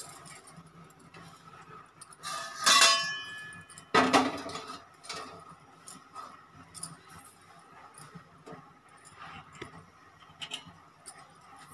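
A metal kadhai clanking onto a gas stove's burner grate: a ringing clink about two and a half seconds in, then a sharper knock about a second later, followed by a few faint clicks.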